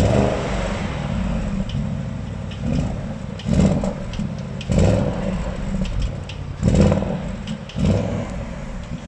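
Audi RS Q8's twin-turbo 4.0-litre V8 heard at the exhaust tailpipe, idling with several short throttle blips that rise and drop back to idle. It cuts off suddenly at the end.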